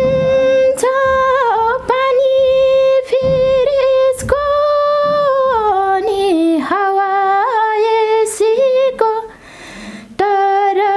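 A woman singing a Nepali song unaccompanied, holding long notes with ornamented slides between them. She breaks off for a breath about nine seconds in, then carries on.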